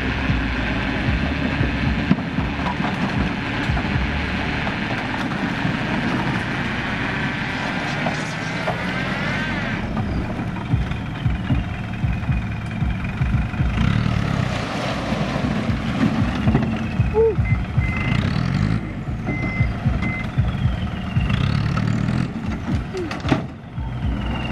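Light dump truck's diesel engine running steadily under load as its hydraulic hoist tips the bed and soil and rock slide out of the back. A few short beeps are heard in the middle.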